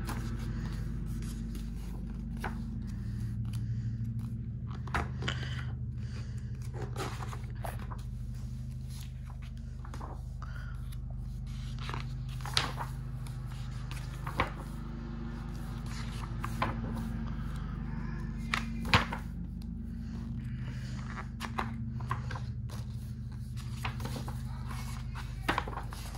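Pages of a large art book turned and pressed flat by hand: paper rustling, sliding and flapping now and then, with a few sharper taps, over a steady low hum.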